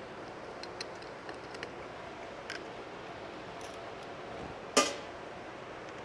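Small metal clicks and taps of carburetor parts and tools being handled during disassembly, with one louder clack a little under five seconds in, over a steady background hiss.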